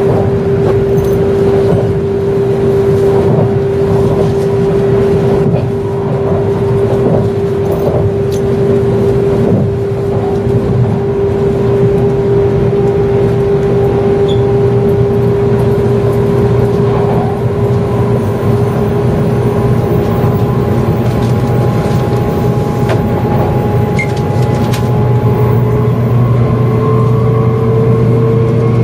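N700 series Shinkansen running noise heard from inside the passenger car: a steady rumble and hum under a continuous motor whine. The whine rises in pitch over the last few seconds as the train accelerates past about 120 km/h.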